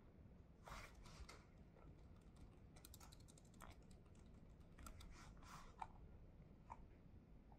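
Faint typing on a laptop keyboard: soft, irregular key clicks, with a quick run of keystrokes about three seconds in.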